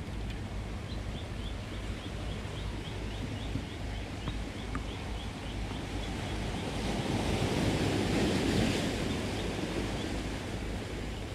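Small sea waves washing over a rocky shore, a steady wash that swells louder about eight seconds in as a bigger wave runs up. A faint run of quick high ticks, about four a second, sounds over the first few seconds.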